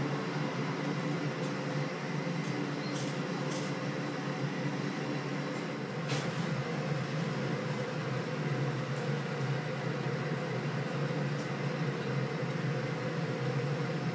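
Steady mechanical hum of foundry machinery, a low drone under an even rushing noise, with a single faint click about six seconds in.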